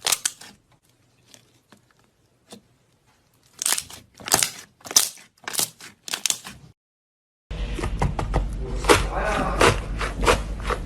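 Slime being squeezed and pressed in the hands, giving crunchy, crackling pops in short bursts. After a brief silence about two-thirds of the way in, the sound switches to denser crackling over a steady background hiss and hum.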